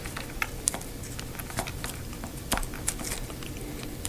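Irregular light clicks and ticks from hands handling and joining stereo wiring-harness leads.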